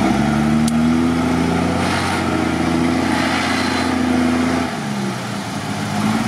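IFA W50 off-road truck's engine working hard in a deep mud and water crossing: revving up over the first couple of seconds, holding high, then easing off about four and a half seconds in and picking up again near the end. Mud and water churn under the tyres while it pulls.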